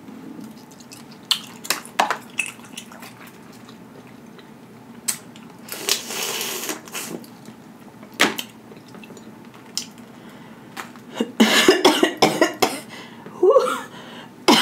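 Close-up eating sounds of boiled crawfish: shells cracking and snapping as they are peeled, a long slurping suck about six seconds in, and a quick run of cracks and wet mouth sounds near the end.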